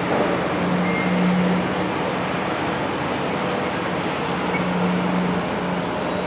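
Steady running of heavy diesel construction machinery, a low engine hum swelling and fading over a constant mechanical din.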